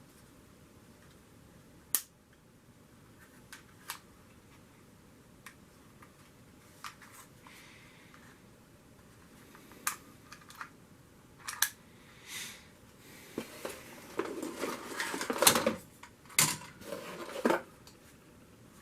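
Small plastic clicks and handling noises a few seconds apart, then a few seconds of rustling and clattering that is the loudest part, followed by two more sharp clicks near the end.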